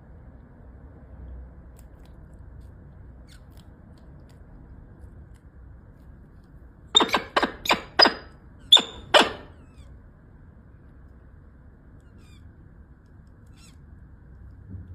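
Raptor chick giving six short, squeaky high calls in quick succession about halfway through, over a faint steady background.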